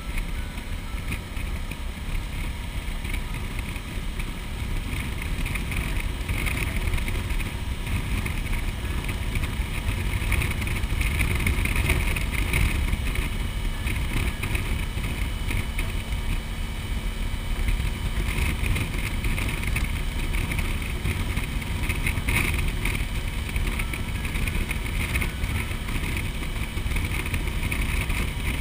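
Motorcycle cruising at steady road speed: a constant engine drone mixed with the rush and buffeting of wind on the microphone.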